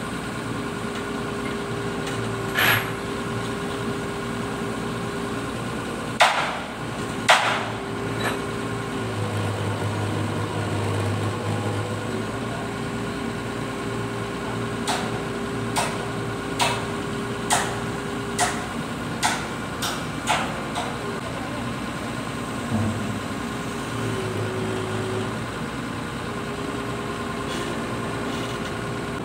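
Crawler crane engine running with a steady hum as it lifts a steel counterweight block. Sharp knocks sound over it: a few single ones in the first eight seconds, then a run of about a dozen between fifteen and twenty-one seconds in.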